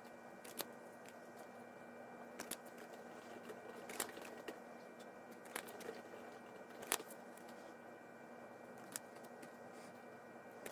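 Faint, scattered clicks and soft taps of trading cards being handled and swapped in the hand, about seven over the span, over a faint steady hum.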